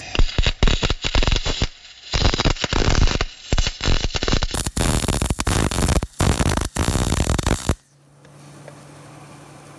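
Wire-feed welder arc crackling in spurts with short pauses between them, welding a nut onto a stuck bolt so it can be turned out. The crackle stops about 8 seconds in, leaving a low hum.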